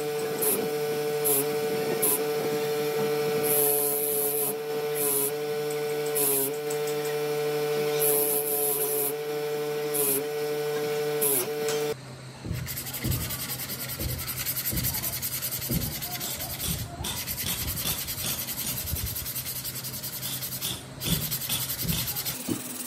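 An electric motor spins a wire wheel with a steady hum. Its pitch sags each time a small part held in pliers is pressed against the bristles, with scratchy bursts of wire brushing. About halfway through, this gives way to back-and-forth strokes of sandpaper rubbing on an angle grinder's housing by hand.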